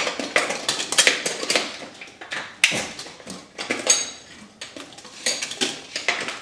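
Screwdriver levering and tapping against a vertical blind's metal headrail and L bracket: a quick run of metallic clicks, knocks and scrapes, with one short ringing clink about four seconds in.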